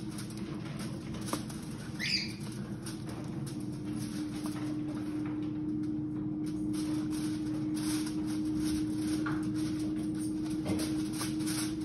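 Hands pressing and shaping modelling clay on a foil tray: soft rustling and faint crinkling over a steady low hum, with a brief squeak about two seconds in.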